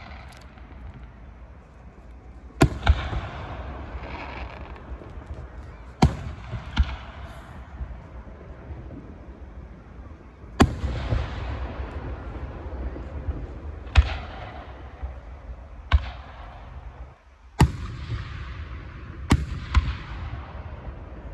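Aerial fireworks going off, about ten sharp bangs a second or a few seconds apart, some in quick pairs, each followed by a lingering crackle and echo.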